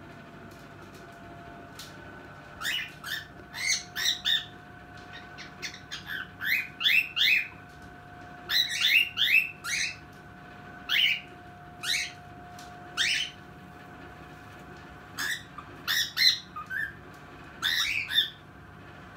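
Cockatiel calling: a long run of short, sharp upward-sweeping squawks and chirps, often in quick pairs or clusters, starting about two and a half seconds in.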